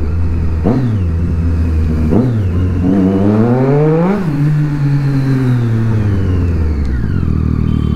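Triumph Street Triple's inline three-cylinder engine while riding: two short throttle blips, then a longer pull up through the revs about three seconds in, followed by a long fall in pitch as the throttle is rolled off, settling low near the end.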